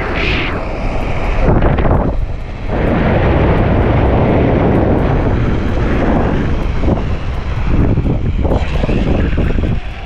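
Loud wind buffeting the camera's microphone as the rider speeds down a zipline cable, a dense rushing rumble with no tones in it.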